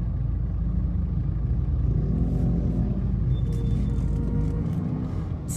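Steady low rumble of a car moving in slow traffic, its engine and road noise heard from inside the cabin.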